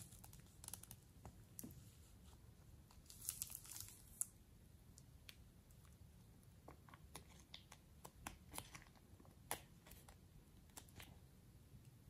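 Thin plastic piping bag crinkling and crackling in the hands as it is squeezed and then twisted, in quiet scattered crackles with a denser cluster about three seconds in.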